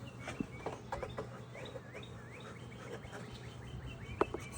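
Small birds chirping, a series of short quick sliding notes, with a few sharp clicks near the end.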